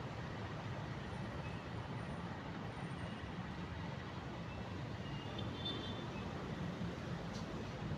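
Diesel-electric locomotive hauling empty fuel tank wagons, its engine and wheels giving a steady low rumble as the train rolls slowly through the station. Faint high squeaks come in about five to six seconds in.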